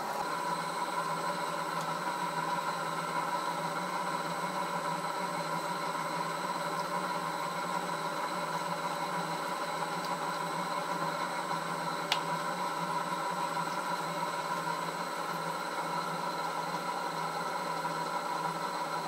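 Bridgeport milling machine running steadily as its coolant-flooded end mill takes a 50-thousandths-deep cut across a steel-fixtured workpiece, an even machine hum with a steady whine. A single sharp click about twelve seconds in.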